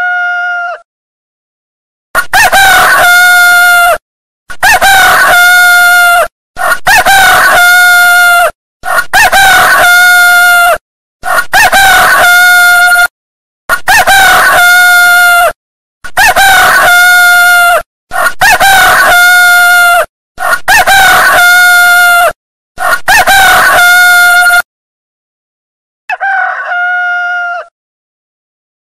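Rooster crowing loudly: a run of about ten near-identical crows, each just under two seconds long with a steady held pitch, following one another with short gaps. One more, quieter crow comes near the end.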